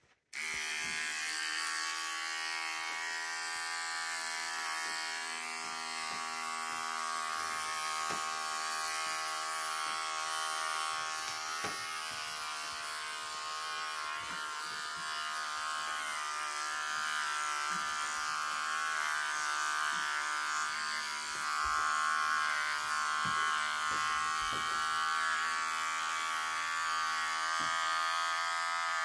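Electric hair clippers switched on just after the start, then buzzing steadily as they cut hair close to the scalp at the zero setting.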